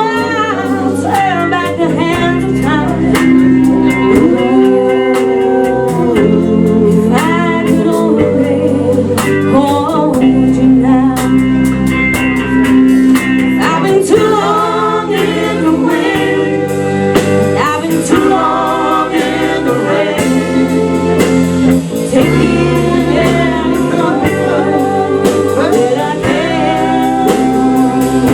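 A live band playing a song: a lead singer over guitar, bass and drums, with a steady beat.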